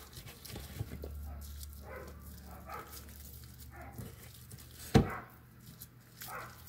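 A dog whining and giving short yips several times in the background, with one sharp knock about five seconds in.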